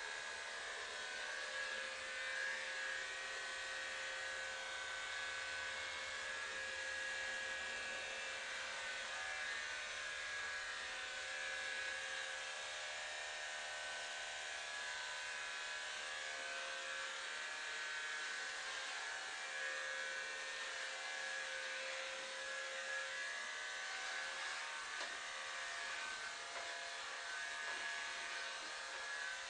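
Electric hair clippers running with a steady buzzing whine as a head is shaved.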